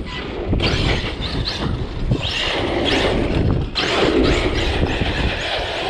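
ARRMA Outcast RC truck's brushless motor revving in repeated rising and falling whines as it accelerates, over tire and wind noise. The open differentials let the tires spin up and balloon under throttle.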